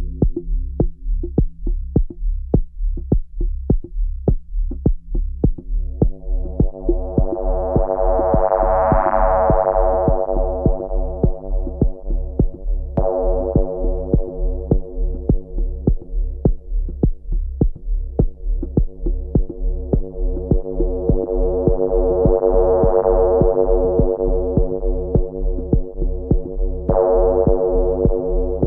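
Elektron Digitone synthesizer playing electronic ambient music: a steady low kick-drum pulse under a sustained chord pad. The pad slowly brightens and then fades back twice, with a sudden bright jump about two thirds of the way through and again near the end.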